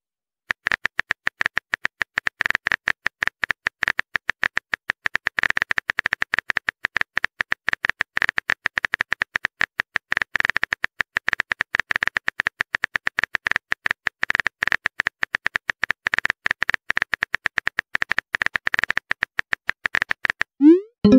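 Texting-app keyboard sound effect: rapid, even typing clicks as a long message is typed letter by letter. They stop shortly before the end, where a short rising tone follows as the message is sent.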